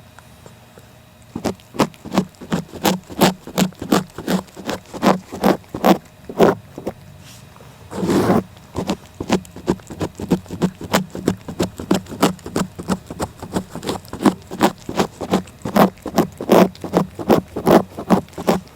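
A cat licking close to the microphone: a quick run of short lick strokes, about three a second, beginning a second and a half in, with one longer scrape about eight seconds in.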